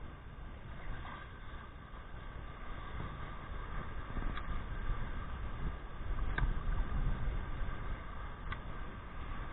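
Wind noise on the microphone over small surf waves breaking and washing in, growing louder past the middle, with three short clicks about two seconds apart.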